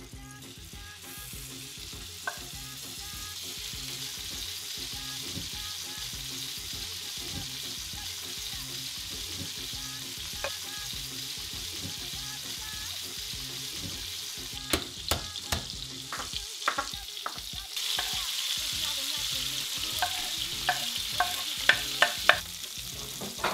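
Venison tenderloin frying in a pan of butter and sunflower oil: a steady sizzle that builds and grows louder about three-quarters of the way through, with sharp crackles and clicks over the last several seconds.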